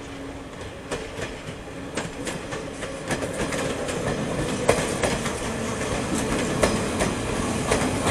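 Series 442 electric train running along the track, its wheels clicking and knocking irregularly over the rails under a steady rumble that grows gradually louder.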